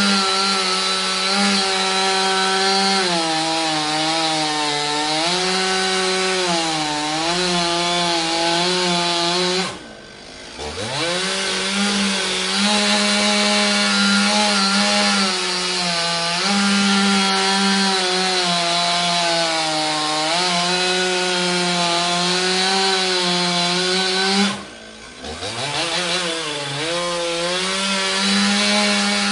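Chainsaw running at high revs through wood, its pitch sagging now and then under the load of the cut. About ten seconds in, and again near the end, it drops off the throttle briefly and then revs back up to full speed.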